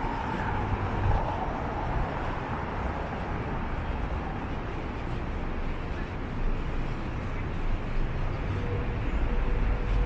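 Downtown street traffic: a steady rumble and hiss of passing vehicles.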